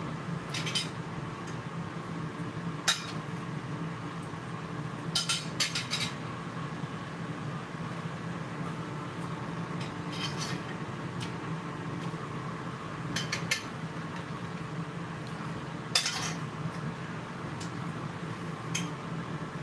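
A metal fork clinking and scraping on a plate while someone eats, in scattered short clicks, a few of them in quick clusters, over a steady low hum.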